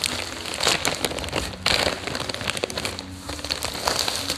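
Grey plastic courier mailer bag crinkling and rustling in uneven bursts as it is handled and a plastic-wrapped item is pulled out of it.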